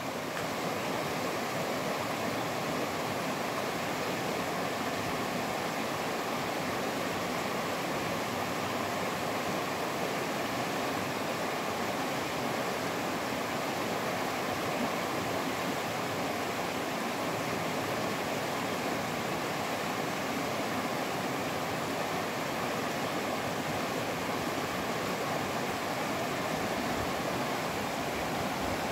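Shallow mountain river rushing over a stony riffle: a steady, even rush of flowing water.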